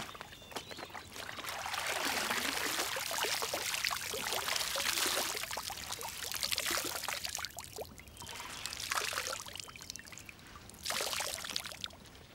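Water pouring and splashing off a wet garment as it is rinsed by hand in a lake, lifted out and dipped back again. It comes in several bouts with short quieter gaps.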